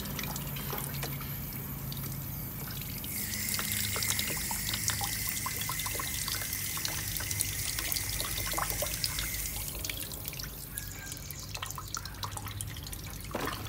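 Tap water running in a steady stream and splashing into a partly filled plastic basin.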